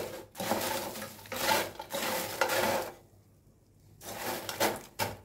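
Spoon scraping and stirring in a cooking pot, breaking up toasted bread in melted butter, in a run of repeated scrapes. The scraping stops for about a second after three seconds, then starts again.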